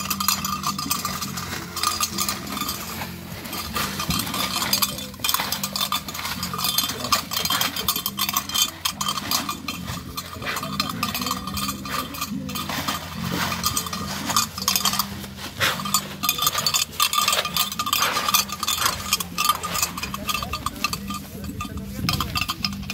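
Bells on a young bull's body rope clanking in rapid, irregular bursts as the bull bucks and moves about.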